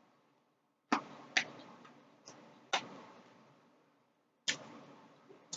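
A person chewing close to the microphone: about six sharp, crisp crunching clicks at irregular intervals, the loudest near the start.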